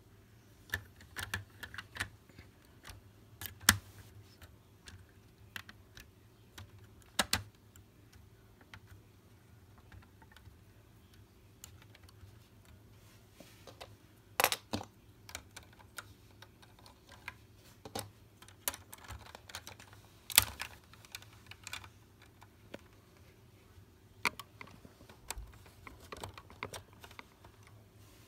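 Irregular light clicks and taps of small plastic Lego bricks being handled, with a few sharper clicks standing out, over a faint steady low hum.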